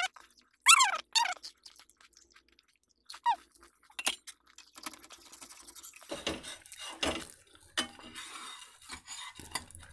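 An egg dosa frying on a tawa, sizzling, with a metal spatula clinking and scraping on the pan from about halfway through. Early on come a few short, high-pitched wavering whines, the loudest sounds here.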